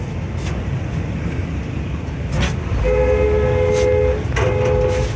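A vehicle horn sounds two blasts, a two-note chord, the first about a second long and the second shorter, over a steady low engine rumble.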